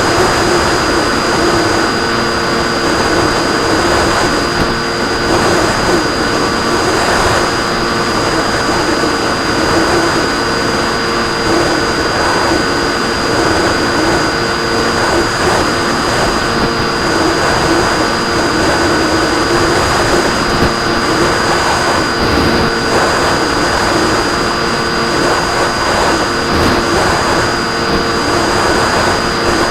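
RC airplane's motor and propeller running steadily at a constant cruise setting, a held whine with several steady tones over a rush of air noise.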